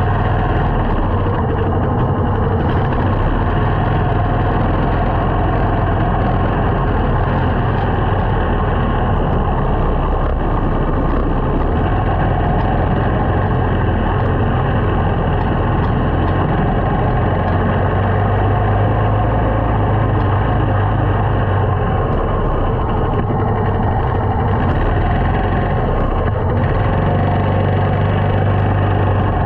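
Small motorcycle's engine running steadily while riding, over a constant rush of road noise. Its low note grows stronger for a few seconds past the middle and again near the end.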